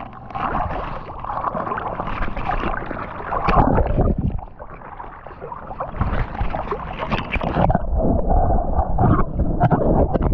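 Water sloshing and gurgling right against a GoPro action camera as it dips in and out of the water, irregular and close. In the last couple of seconds it turns duller and muffled, the camera under the surface.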